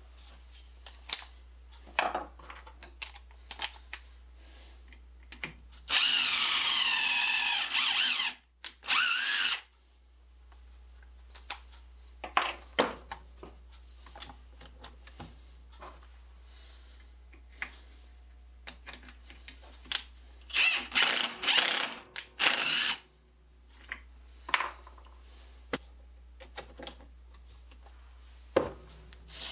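DeWalt cordless drill boring pilot holes into a wooden block for lag screws: one run of about three seconds whose motor pitch drops as the bit bites, then a later spell of several short bursts. Between the runs, scattered clicks and knocks from tools being handled on the bench.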